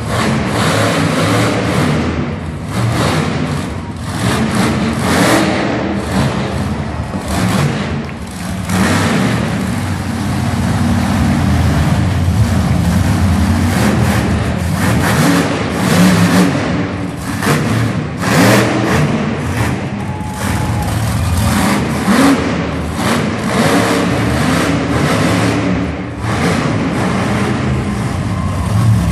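Monster truck's supercharged V8 engine revving hard over and over, its pitch surging up and down as the throttle is worked while the truck drives the dirt course.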